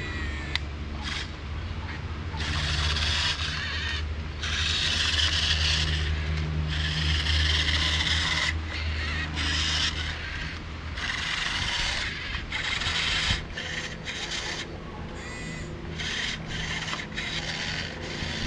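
Huina 1567 RC wheel loader's small electric drive and arm motors whirring with plastic gear noise in stop-start bursts as it is driven back and forth, over a low steady hum that drops away about two-thirds of the way through.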